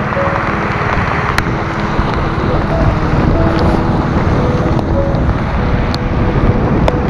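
Wind buffeting the microphone on a moving motorbike: a steady, dense low rumble.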